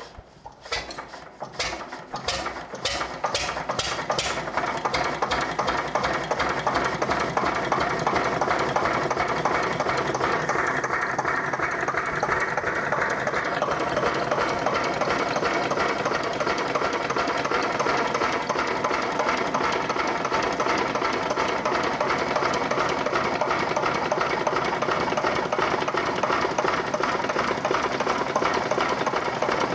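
Slavia D15 single-cylinder stationary diesel engine starting up: separate firing strokes that come faster and faster over the first few seconds, then settling into steady running with a rapid, even knock.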